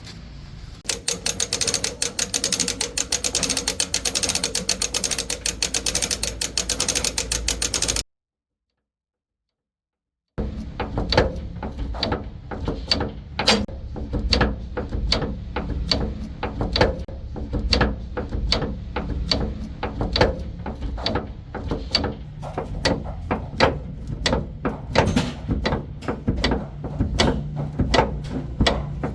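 Metal tools working on a truck leaf spring assembly: a fast mechanical rattle for several seconds, then a sudden break to silence, then a long run of irregular metallic clicks and knocks, a few a second.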